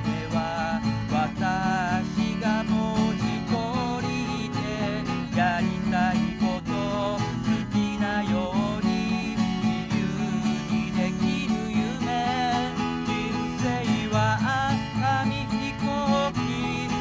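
Acoustic guitar strummed steadily while a man sings a Japanese pop ballad along with it.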